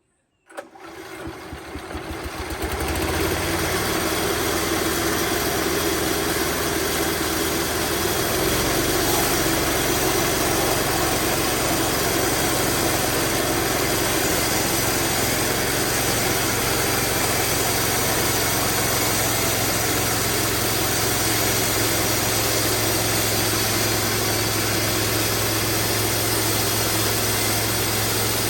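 Bandsaw sawmill starting up, building to full running over about three seconds, then running steadily. Its low hum changes about eight seconds in.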